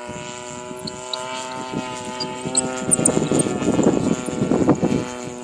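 RC 3D aerobatic model airplane's motor and propeller running at a steady pitch, with gusts of wind noise on the microphone partway through.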